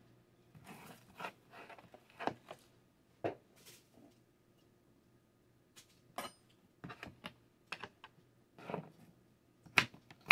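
A small kitchen knife scraping and tapping against garlic cloves and a plastic cutting board as the papery skins are peeled off. It makes an irregular run of soft clicks and scratches, with a sharper tap near the end.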